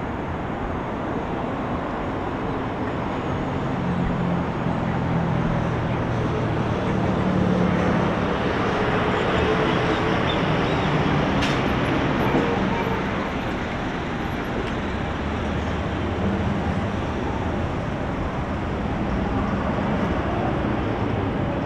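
Road traffic: a steady rush of vehicles, with a passing vehicle's engine hum growing louder from about four seconds in and fading away after about thirteen seconds.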